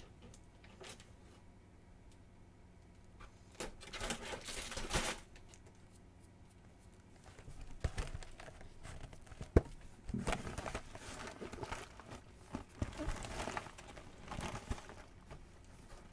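Plastic mailing satchel and snack packaging being handled, crinkling and tearing in irregular bursts, with a sharp click about ten seconds in.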